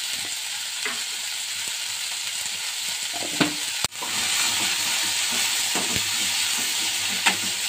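Sliced onions sizzling in hot coconut oil in a steel kadai while being stirred, the spoon clicking against the pan a few times. The onions are being sautéed until they soften.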